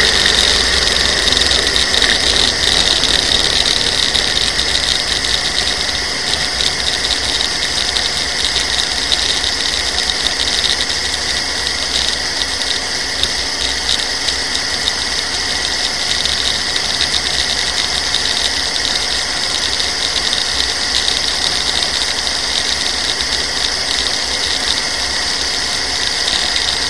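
Onboard sound of a dragster's engine running at low revs under steady wind and road rumble on the car-mounted camera, easing off slightly over the first few seconds as the car slows after the run.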